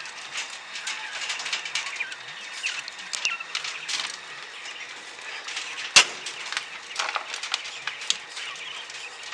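A cage of quail on a wire-mesh floor: a busy, irregular patter of small clicks and taps from their pecking and moving about, with one sharp knock about six seconds in.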